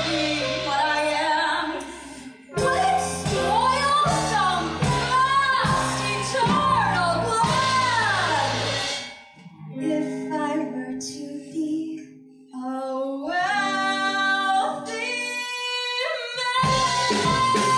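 A woman singing live with a band led by piano. The accompaniment thins out briefly twice in the middle, and she rises into a long held note near the end.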